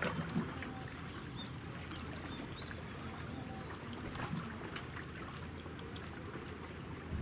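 Low steady hum of a passing Japanese destroyer's engines carried across the water, over a wash of choppy water. A few faint high chirps come in about two to three seconds in.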